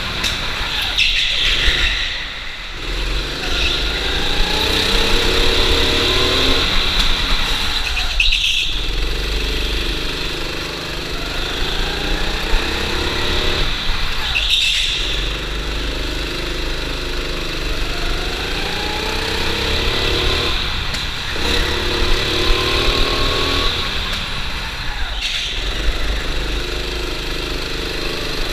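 Go-kart engine heard from onboard under hard acceleration, its pitch climbing and then dropping sharply about every six seconds as the driver lifts off for the corners.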